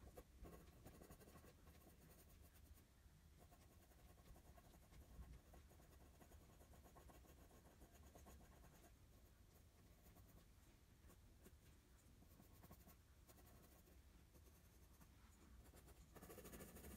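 Faint scratching of a graphite pencil on drawing paper, in many quick, short repeated strokes as fur is shaded. It gets a little louder near the end.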